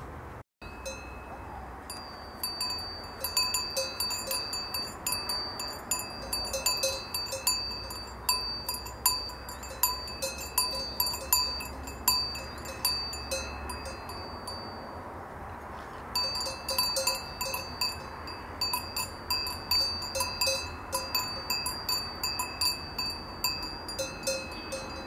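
Cowbell on a grazing cow clanking irregularly as the animal moves. It starts about two seconds in and pauses for about a second about two-thirds of the way through.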